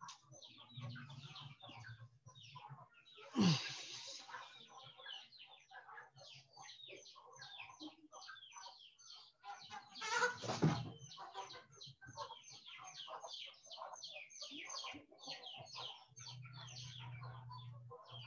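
Birds calling faintly over a video-call microphone: a dense run of short chirps, about four or five a second, with two louder calls about three and a half and ten and a half seconds in.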